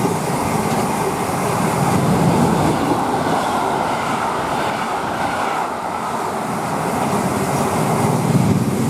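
Freight train running through the station: a steady noise of wagons and wheels on the rails.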